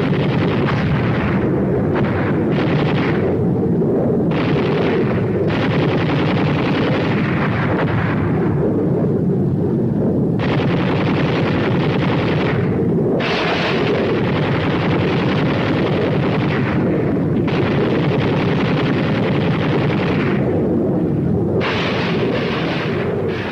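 Machine-gun fire and explosions of a fighter's strafing attack: a dense, continuous roar with sharper crackling stretches that break in and stop every one to three seconds.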